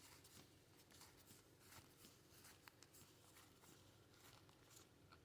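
Near silence, with faint soft clicks and rustles of Pokémon trading cards being flipped through by hand.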